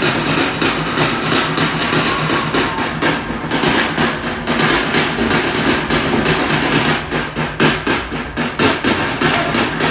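Seated group of performers striking a fast, even rhythm in unison with their hands: many sharp claps and slaps landing together, several a second, over a steady low hum.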